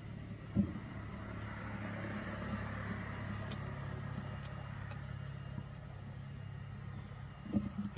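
A motor vehicle engine runs with a steady low drone. There is a short thump about half a second in and another near the end.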